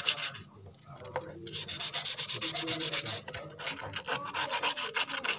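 Rusty steel knife blade sanded by hand with rapid back-and-forth strokes, an abrasive rubbing that stops briefly about half a second in and resumes at a second and a half.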